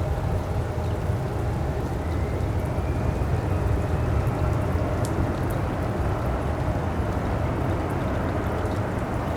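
Heavy rain with wind rumbling on the microphone, a steady noise with scattered drops ticking. A faint whine rises gently about two seconds in.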